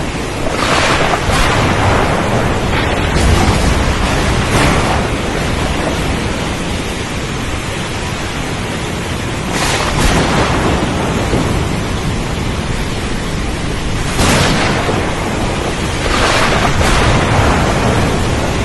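Heavy rain beating on a window: a dense, steady hiss with a low rumble beneath it and several brief louder surges.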